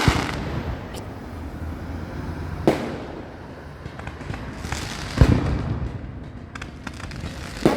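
Fireworks display: aerial shells bursting in separate bangs over a continuous low rumble, the loudest a deep boom about five seconds in, followed by a few sharp crackles near the end.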